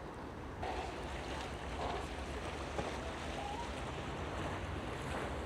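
Harbourside outdoor ambience: a steady low rumble and hiss of wind, water and distant boats, with nothing standing out.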